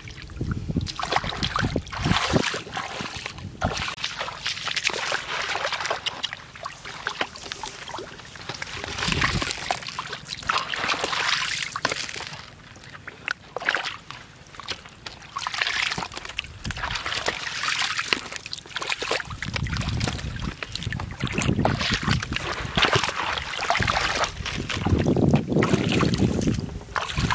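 Shallow muddy water splashing and sloshing in irregular bursts as a person wades barefoot and grabs at fish.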